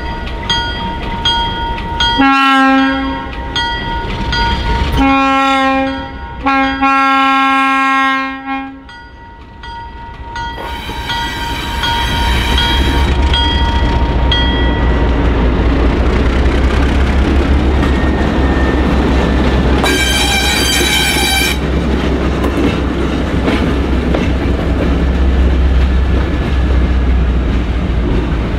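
Alco S-6 diesel switcher moving at walking pace, its bell ringing about twice a second while its air horn gives three blasts, the last the longest. Then its six-cylinder Alco 539 diesel engine rumbles steadily as it draws near, with one more short horn blast.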